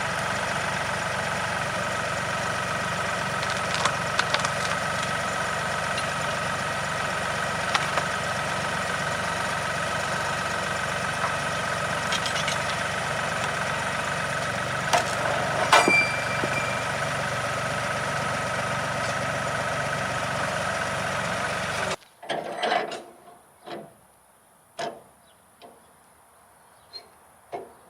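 Woodland Mills HM126 sawmill's engine running steadily, with a few sharp clicks over it. It cuts off abruptly about 22 seconds in, leaving only a few scattered knocks.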